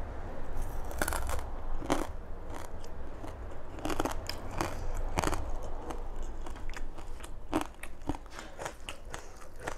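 Close-miked chewing of crunchy food, with many short sharp crunches. Crisp lettuce leaves are torn by hand near the end.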